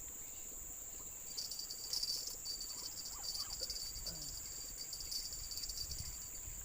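Tropical forest insects calling: a steady high-pitched drone with a rapid, pulsing chirp joining in about a second and a half in.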